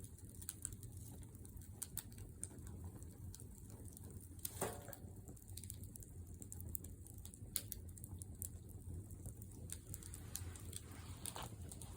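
Wood fire in a fire pit crackling, with faint irregular pops and snaps over a low steady rumble of the flames, and one louder pop a little before halfway.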